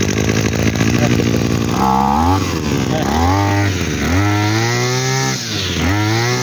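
Robin 2560 two-stroke brush cutter engine running at a fast idle, then revved up and let back down several times, starting about two seconds in. The machine is running as found, fuelled and started with no repair done to it.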